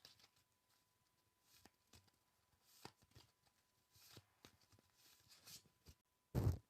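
Close-miked ASMR tapping and scratching: scattered soft taps and brushing rustles, then one loud thump near the end.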